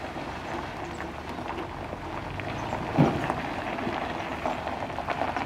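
Dump truck with trailer reversing slowly over gravel: its diesel engine running low under a fine crackle of tyres on gravel, with one short loud sound about three seconds in.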